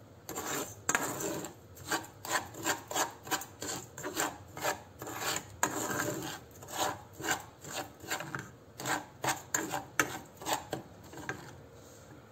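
Metal spoon scraping and stirring dry, crumbly soil in a stainless steel saucepan, with repeated rasping strokes about twice a second that stop near the end.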